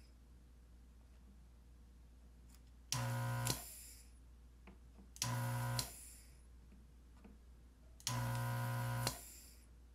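Vacuum pump of a desoldering gun buzzing in three short bursts, each ending with a sharp click, as it sucks molten solder off relay pins on a circuit board. The second burst is the shortest, and the last is the longest, about a second.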